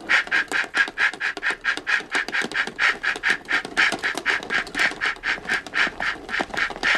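Steam train chuffing in a steady rhythm, about four puffs a second.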